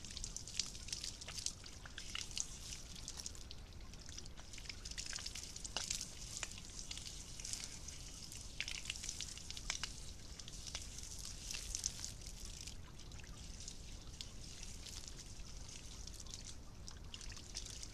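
Water from a small garden fountain splashing and dripping as a raccoon paws and dabbles in it, with many quick splashes throughout.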